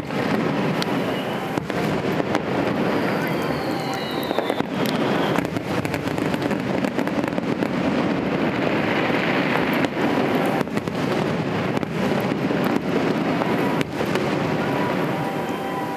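Aerial fireworks shells bursting in quick succession: repeated sharp bangs over a dense, continuous crackling hiss, with one falling whistle about three seconds in.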